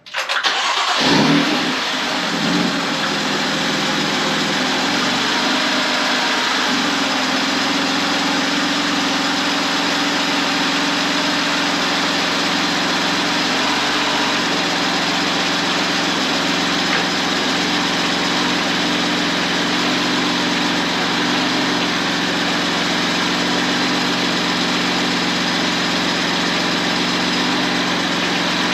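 BMW F80 M3's twin-turbo straight-six starting up on freshly installed hybrid turbos and a stage 2 tune: it fires, flares briefly about a second in, then settles into a steady idle.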